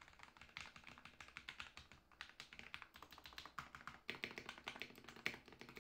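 Fast typing on a Ducky One 2 Mini 60% mechanical keyboard with hand-lubed Cherry MX Silver (Speed) linear switches: a rapid run of key clicks, with brief breaks about two and four seconds in.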